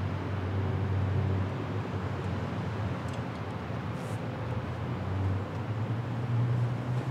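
Steady low hum and rumble, like vehicle traffic noise, shifting slightly higher in pitch about five seconds in.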